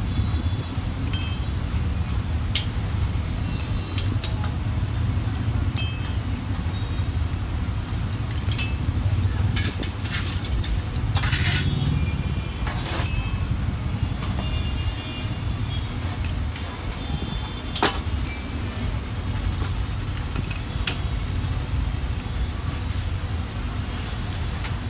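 Steady low rumble of passing street traffic, with scattered short metallic clicks and taps from a hand tool working on the steel bed frame.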